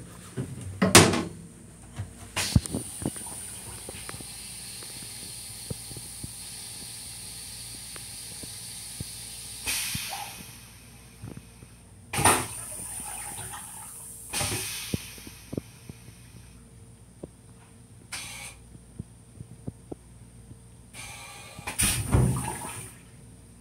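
Metro-North M7 railcar toilet flushing: a loud whoosh about a second in, a steady hiss for several seconds, then several more short whooshes and spurts.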